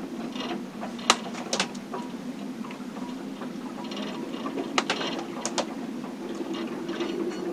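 Inside a sailboat's cabin in a storm: the boat's fittings and hull creak and knock with sharp clicks, about a second in and again in a cluster around five seconds, over a steady low hum.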